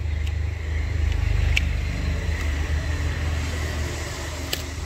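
A steady low hum, with a few light clicks from small parts being handled while a phone's screen is lifted off during a repair.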